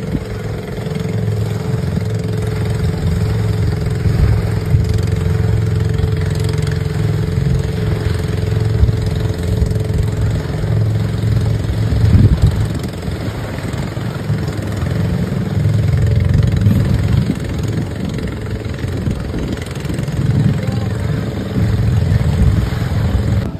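A small boat engine running with one steady drone that sinks slightly in pitch, under a loud, uneven wind rumble on the microphone.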